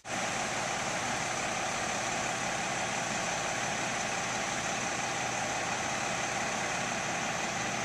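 Steady engine noise of a running vehicle or machine, cutting in suddenly and holding at an even level.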